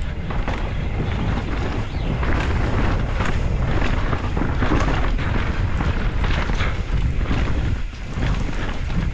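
Wind buffeting a mountain bike's camera microphone during a fast downhill run, with the tyres rumbling over gravel and roots and the bike rattling and knocking over the bumps.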